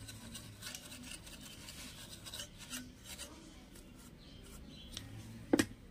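A small brush scrubbing across a circuit board and metal chassis in quick, scratchy strokes, fading to lighter rubbing. One sharp knock near the end is the loudest sound.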